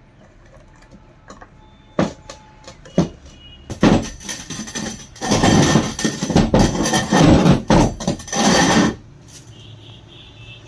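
Metal knocks from a pump being worked on, then about four seconds of loud, dense metal clattering and scraping.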